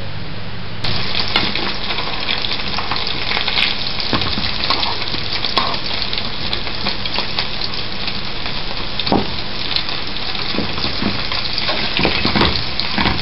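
Meat-topped bread canapés frying in hot oil: a steady sizzle with frequent crackles and pops. It starts suddenly about a second in.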